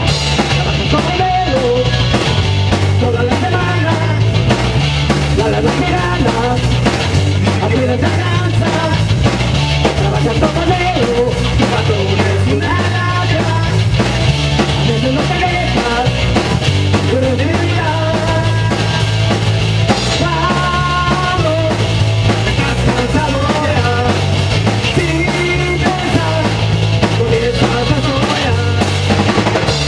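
Live rock band playing loud: electric guitar and electric bass over a drum kit, the bass line moving through a steady run of held notes.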